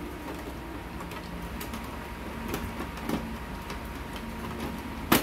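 Plastic print drum unit of a Samsung colour laser printer being pushed and worked into its slot by hand. Faint scrapes and light knocks, then one sharp click about five seconds in.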